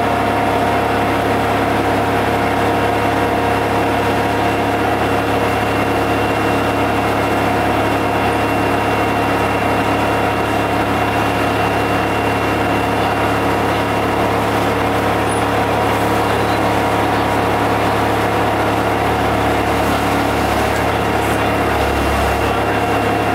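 GM TDH-5303 transit bus's diesel engine running at a steady speed, a constant drone that does not rise or fall.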